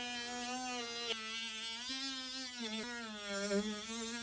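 Handheld electric cutting tool buzzing steadily as it cuts through the Tacoma's factory bumper, its pitch dipping and wavering a few times as the blade loads up.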